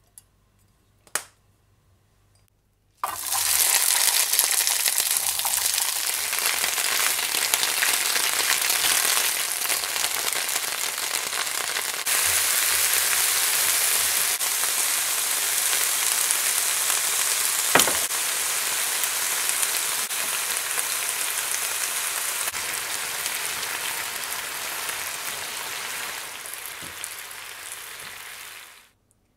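Komatsuna and shimeji mushrooms sizzling as they stir-fry in hot oil in a frying pan. The sizzle starts suddenly about three seconds in, with one sharp click in the middle, grows a little quieter near the end and then cuts off suddenly.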